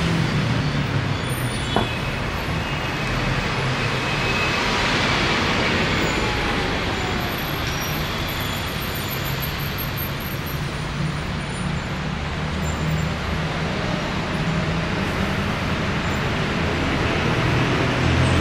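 Street traffic noise of cars and buses driving past, with a deeper engine hum swelling near the start and again near the end. A single sharp click comes a couple of seconds in.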